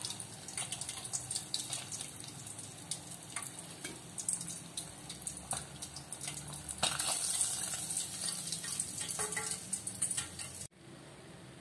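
Indian mackerel deep-frying in hot oil in a stainless-steel pot: a steady sizzle with many crackling pops. It grows louder for a few seconds near the end, then cuts off suddenly.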